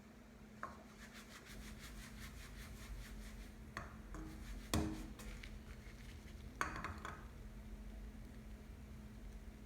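Kitchen utensils handled against cookware: light scraping and rapid faint ticks, with a few sharp knocks. The loudest knock, about five seconds in, rings briefly like a dish or pan. A steady low hum runs underneath.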